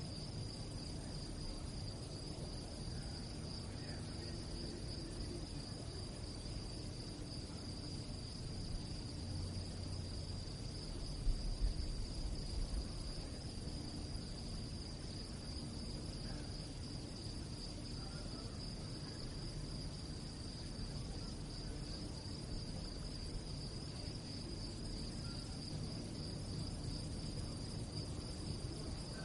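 Crickets chirping at night in a steady, unbroken high chorus. A brief low rumble comes about a third of the way in.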